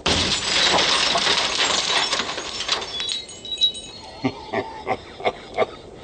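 Tempered-glass side window of a pickup truck shattering under a glass punch: a sudden loud crash that crackles on for about three seconds, then scattered clinks of falling glass pieces.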